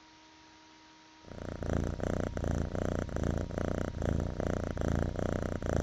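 A cat purring, a steady pulsing rumble that starts about a second in, after a faint electrical hum.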